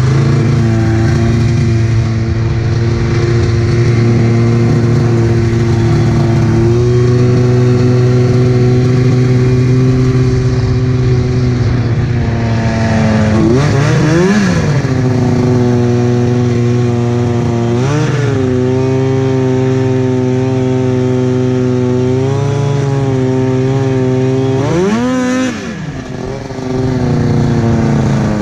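Arctic Cat F7 snowmobile's two-stroke engine, fitted with a D&D pipe and Jaws can, running steadily under way. It revs up sharply and falls back three times: about halfway through, a few seconds later, and again near the end.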